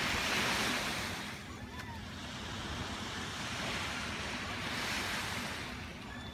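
Small waves lapping and washing onto a sandy beach, the wash swelling twice, at the start and again about five seconds in.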